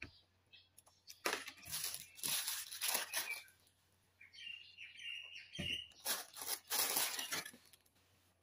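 Thin plastic bag crinkling and a plastic cup and lid being handled, in two rustling spells, with sipping from the cup in between.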